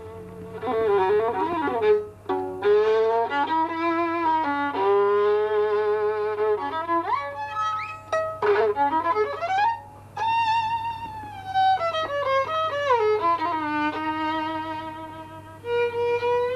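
Background music: a solo melody instrument playing slow phrases with vibrato and sliding pitches, with a faint steady hum underneath.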